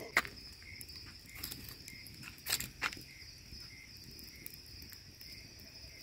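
Faint crickets chirping steadily, with a few sharp crackling pops from a wood campfire about a second and a half apart, two to three seconds in.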